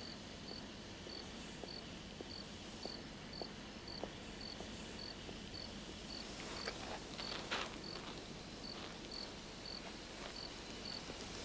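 A cricket chirping steadily in the night, a short high chirp about twice a second over a quiet background, with a few faint rustles about two-thirds of the way through.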